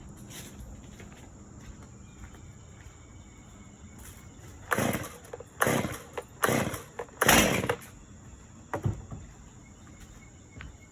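Gas chainsaw's recoil starter cord pulled four times in quick succession, about a second apart, on full choke for a cold start; the last pull is the loudest, and the engine does not keep running.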